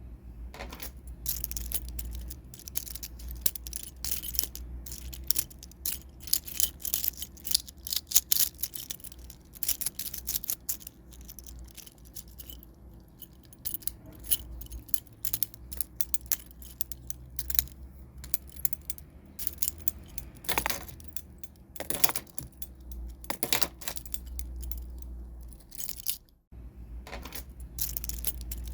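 A bunch of metal keys jingling and clinking in irregular bursts of sharp, bright clinks. There are a few separate louder jangles about two-thirds of the way through, over a steady low hum.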